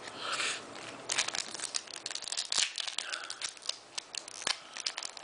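Foil wrapper of a Pokémon booster pack crinkling and crackling in the hands as it is torn open, a dense run of sharp crackles.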